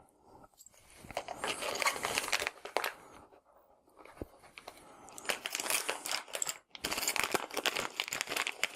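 Plastic packaging crinkling and rustling as it is handled, in two long spells with a quieter pause between.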